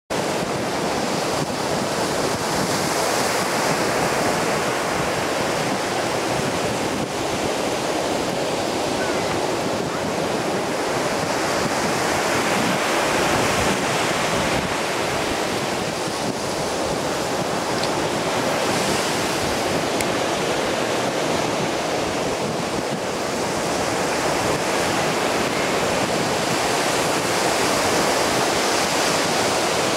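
Atlantic Ocean surf breaking on a sandy beach: a steady wash of waves that swells and eases every few seconds, with some wind on the microphone.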